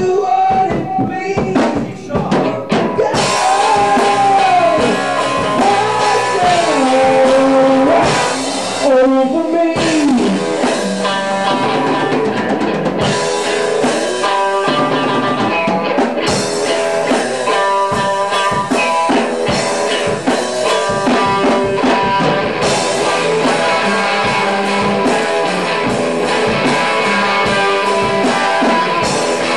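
Rock band playing live: drum kit with cymbals, electric guitars, and a man singing into a microphone. Long sliding vocal notes stand out in roughly the first ten seconds, then the band carries on at full volume.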